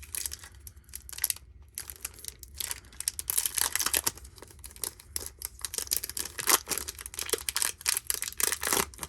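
Plastic wrapper of a baseball card pack being torn open and crinkled, an irregular crackling that is busiest in the second half.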